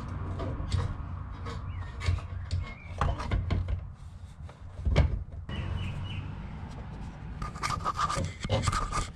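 Hands working at a car's fuel pump access hole, reconnecting hoses and wiring to the pump plate: rubbing and scraping with scattered clicks, a sharper knock about five seconds in and a quick run of clicks near the end.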